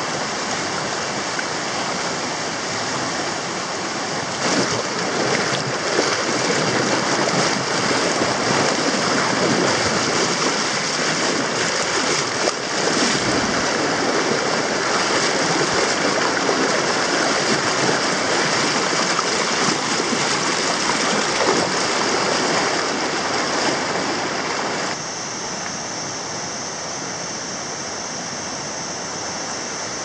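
A fast river rushing over shallow rapids: a steady, loud rush of white water. About five seconds before the end it turns quieter and hissier.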